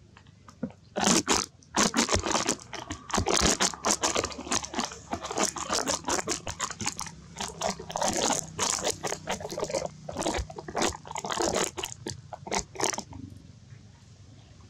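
Long-tailed macaque biting and chewing a piece of fruit close to the microphone: a dense, irregular run of wet crunches and smacks that starts about a second in and thins out near the end.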